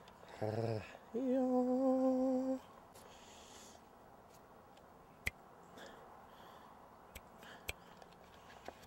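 A person humming: a short voiced sound, then one steady hummed note held for about a second and a half. After it come a faint background and a few sharp clicks.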